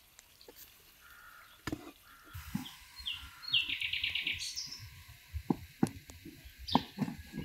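A wooden spoon stirs and scrapes sliced mushrooms around a metal frying pan, with sharp knocks against the pan in the last couple of seconds. A bird chirps a quick trill about halfway through.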